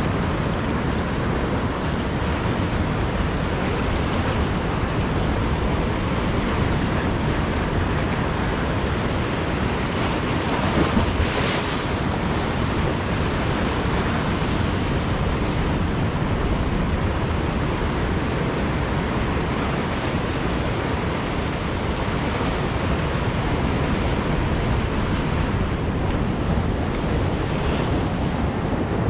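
Sea surf washing and breaking over shoreline rocks, with wind on the microphone: a steady rushing noise, with one brief louder surge about eleven seconds in.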